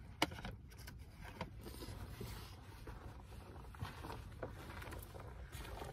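Low, steady outdoor background rumble with a few light clicks and rustles, the sharpest about a quarter second in.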